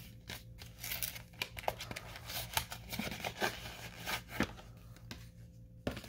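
Paper and plastic packaging being handled by hand: rustling, crinkling and a run of small clicks, with a sharp click just before the end.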